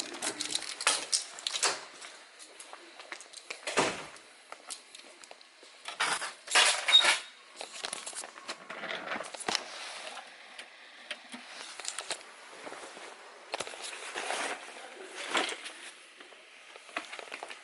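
Intermittent clicks, knocks and light clatter of small objects being handled, with a louder burst of clatter about six to seven seconds in.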